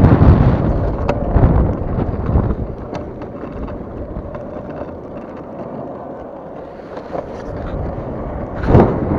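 Wind buffeting the microphone of a body-worn camera, mixed with the rumble of longboard wheels rolling on asphalt. Loud at first, it eases off through the middle, and a sudden gust hits just before the end.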